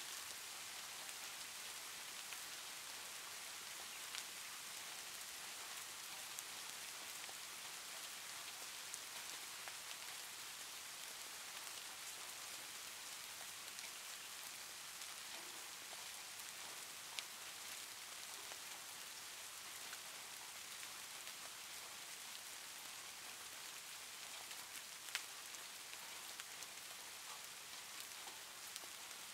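Faint steady hiss like light rain, with a few faint ticks scattered through it.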